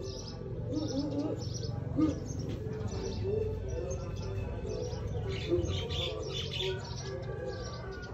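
Small birds chirping over and over, with lower cooing calls mixed in, over a steady low rumble.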